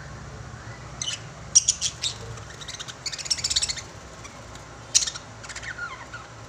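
Lovebirds chirping: sharp high chirps, a quick chattering run in the middle, then another sharp call followed by short falling notes.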